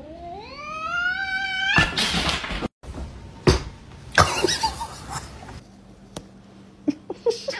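A cat's drawn-out yowl, rising steadily in pitch for almost two seconds and ending in a short burst of noise. After a cut come a few sharp knocks and taps.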